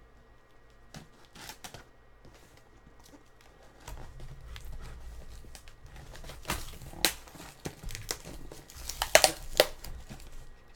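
Cardboard shipping box being opened by hand: packing tape cut and peeled off, flaps and packing rustling and crinkling. Faint at first, it turns into busier handling about four seconds in, with a run of sharp crackles and snaps near the end.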